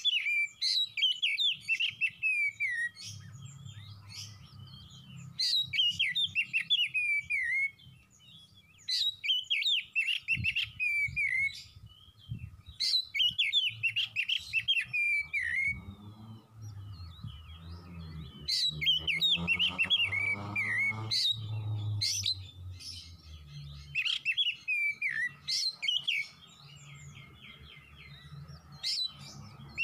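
Oriental magpie-robin (kacer) singing: loud phrases of quick, falling whistled notes, each a few seconds long and repeated about every four seconds, over a faint low hum.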